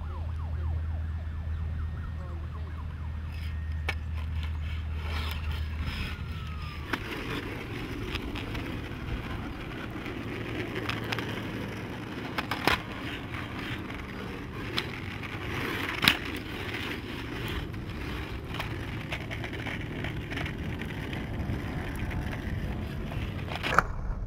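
RipStik caster board wheels rolling on asphalt, an even rolling noise, with a few sharp clacks of the board against the pavement. For the first several seconds a low steady hum is heard instead.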